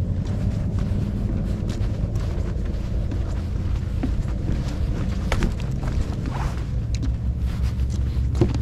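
Wind buffeting a chest-mounted GoPro's microphone, a steady low rumble, with scattered light clicks and knocks over it.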